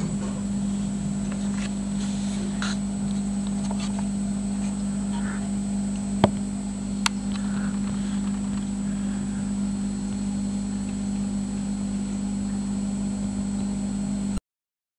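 Steady low hum of aquarium equipment, with two sharp clicks about six and seven seconds in; the sound cuts off just before the end.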